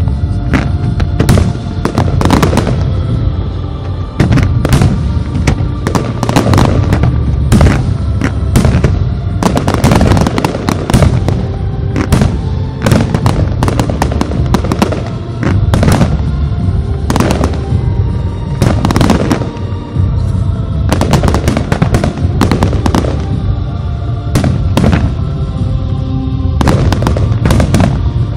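Aerial firework shells bursting in rapid, irregular succession, dozens of loud bangs through the whole stretch, with music playing underneath.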